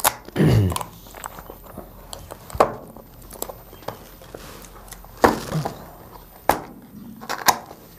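Hands handling a small cardboard mobile-phone box and peeling its clear tape seal: a handful of sharp taps and clicks spread apart, with soft rustling between them.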